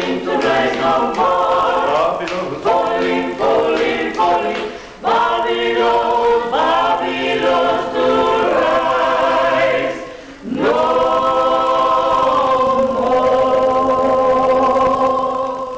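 A small group of men and women singing together without accompaniment. About ten seconds in they hold one long note, which fades away near the end.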